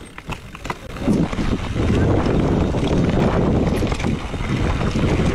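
Wind buffeting the camera microphone and mountain bike tyres rumbling over a grassy dirt trail as the bike rolls downhill, growing loud about a second in and staying loud. A few sharp clicks come just before the noise rises.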